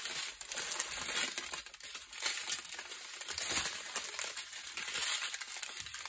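Strips of small plastic bags of diamond painting drills crinkling and crackling as they are handled and laid out.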